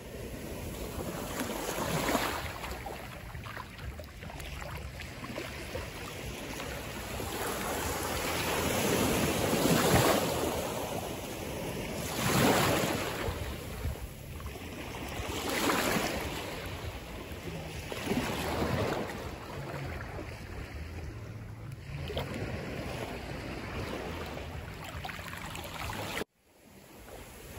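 Small sea waves washing up and back over a sandy shore in shallow water, the rush swelling and fading every few seconds. The sound drops out for a moment near the end.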